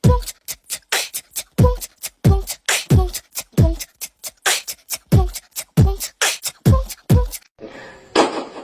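Beatbox rhythm of deep kicks that drop in pitch, mixed with sharp snare-like clicks, about one kick every half to one second. It stops about seven and a half seconds in and gives way to a hissing rustle.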